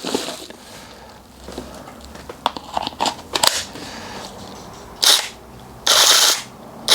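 Plastic clicks and knocks of a cordless mini chainsaw being handled, then its electric motor and 4-inch chain spin up in short trigger blips about five and six seconds in and a third, longer and louder, just before the end.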